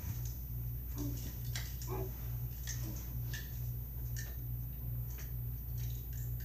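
Soft scattered taps and rustles of people moving on a carpeted floor, over a steady low hum that pulses evenly.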